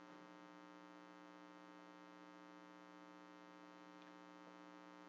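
Near silence with a faint, steady electrical hum made of many even overtones.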